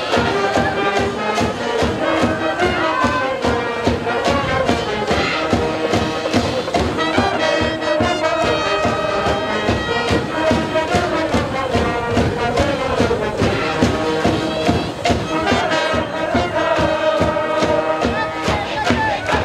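High school brass band playing an upbeat cheer tune with a steady drum beat, a cheering crowd beneath it.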